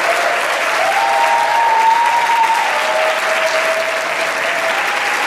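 Audience applauding steadily after the cantor is introduced, with a thin held tone ringing faintly over the clapping for a few seconds in the middle.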